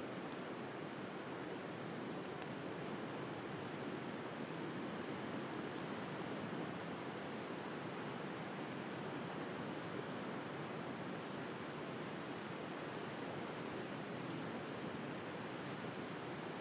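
Steady rushing noise of the sea, with faint, sparse crackles of a wood fire scattered through it.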